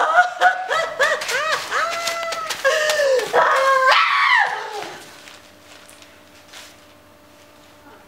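A performer's high-pitched wordless cries: a string of short yelping squeals that rise and fall in pitch, stopping about five seconds in. After that only quiet room tone with a faint steady hum remains.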